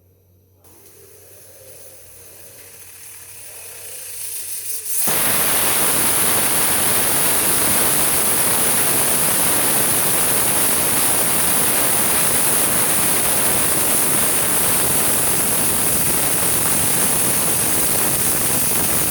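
Pressure cooker whistling: steam hisses faintly and builds for about five seconds, then suddenly becomes a loud, steady hiss of steam venting, the whistle that marks the cooker at full pressure.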